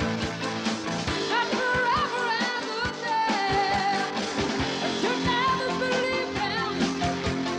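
Rock song playing: singing over a full band with a steady drum beat.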